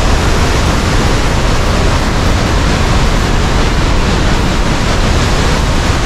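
Waterfall roaring close by: a loud, steady rush of falling water with no let-up.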